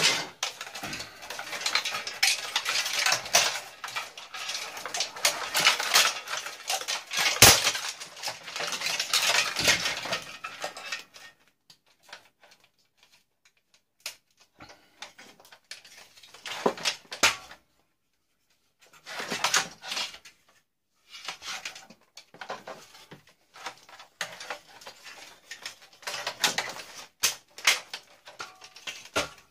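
Scrap parts of a tube television clattering and rattling as they are handled and cleared aside: a dense, busy clatter for about the first ten seconds, then scattered short knocks and scrapes with quiet gaps between.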